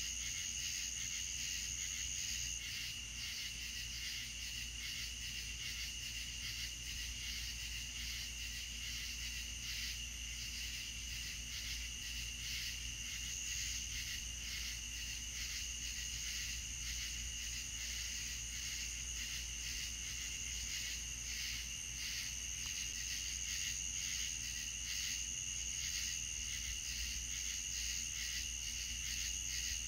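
Night insects, crickets, trilling in a dense steady chorus of high, fast-pulsing tones, over a low steady hum.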